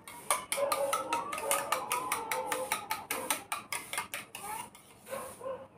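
Steel spoon beating eggs in a stainless steel bowl: quick metal-on-metal clinks, several a second, with the bowl ringing faintly between strokes, easing off near the end.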